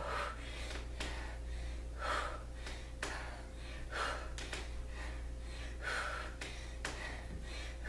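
A woman breathing hard through kettlebell squats, with a sharp, breathy gasp about every two seconds, one per squat.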